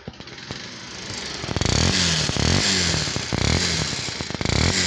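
Bajaj Pulsar 150's single-cylinder engine running, then revved up and down four times with blips of the throttle. It has a noisy engine and vibration, which the mechanic traces to a scored piston, a worn timing chain pad and chain, and a balancer gear with broken teeth.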